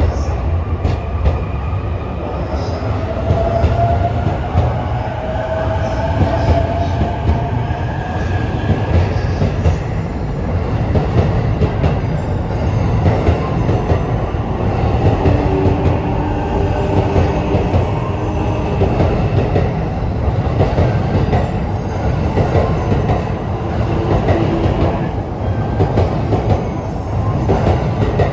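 Electric commuter train moving along a station platform: a steady heavy rumble with wheels clattering over rail joints, and a motor whine rising in pitch over the first several seconds as it pulls away.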